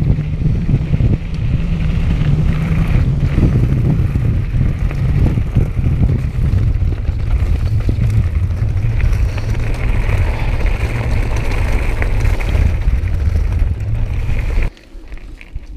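Wind buffeting a GoPro action camera's microphone as a mountain bike rides a rough, muddy grass track, a steady low rumble with tyre and trail noise over it. It cuts off abruptly near the end.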